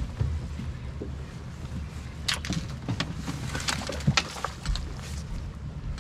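Steady low rumble on an open bass boat, with scattered sharp knocks and clicks on the deck between about two and five seconds in.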